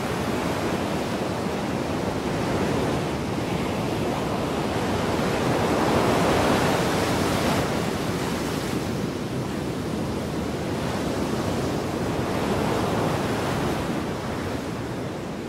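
Seawater rushing and breaking over the hull of a vessel under way: a steady rush of surf and spray that swells about six seconds in and eases slightly near the end.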